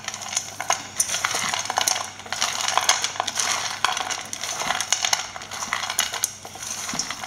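A spoon mixing chopped nuts into khova in a bowl: continuous scraping with many quick light clinks against the bowl.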